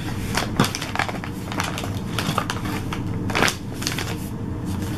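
A Chick-fil-A paper sandwich bag rustling and crinkling as it is pulled open and the chicken sandwich taken out, in irregular crackles, with the loudest crumple about three and a half seconds in.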